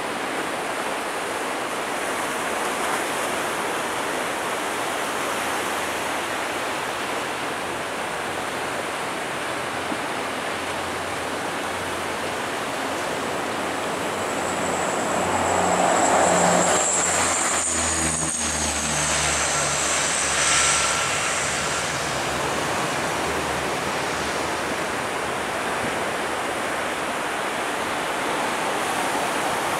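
Boeing 777 jet engines running as the airliner taxis, over a steady rushing background. About halfway through the engine sound swells, with a high whine that falls slightly in pitch and low engine tones, then eases back.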